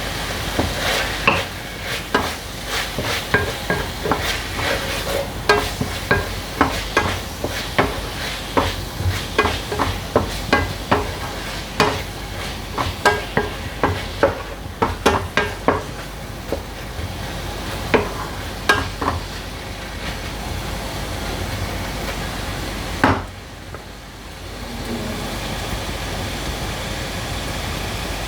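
A spatula knocking and scraping on a non-stick frying pan, about two or three knocks a second, as minced beef in tomato purée is stirred and sizzles. The stirring stops about two-thirds of the way through, leaving a steady sizzle with one more knock a little later.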